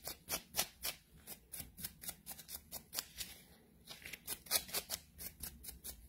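Quick strokes of a nail dust brush sweeping filing dust off a gel nail: several short swishes a second, strongest in the first second, then lighter and sparser.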